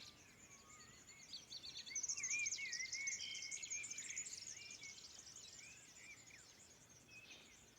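Dawn chorus: many birds singing and chirping at once, with warbling and short calls, busiest about two seconds in.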